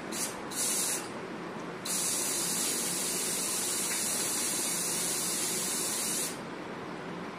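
A steady, high-pitched hiss in two spells: a short one about half a second in, then a longer one of about four seconds that cuts off near the end.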